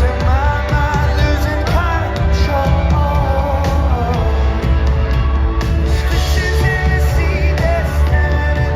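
Live rock band playing loudly, a lead singer's voice carried over heavy bass and regular drum hits, as heard at a concert.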